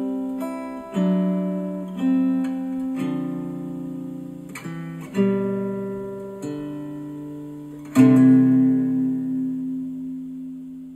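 Acoustic guitar music played back through Dayton Audio B652 Air bookshelf speakers driven by a Yamaha A-S301 integrated amplifier. Plucked chords change every second or so and each dies away; the last chord, struck about eight seconds in, rings out and fades.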